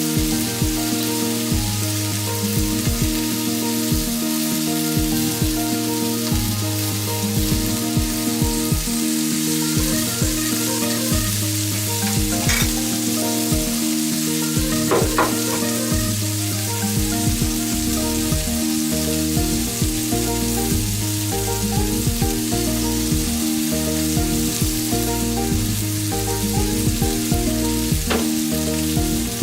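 Food sizzling steadily as it fries in a cast-iron skillet, with a few sharp ticks now and then.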